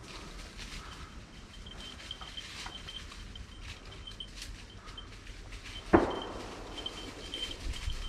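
Rustling footsteps through forest undergrowth, with a faint high-pitched chirping repeating throughout. A single sharp knock comes about six seconds in.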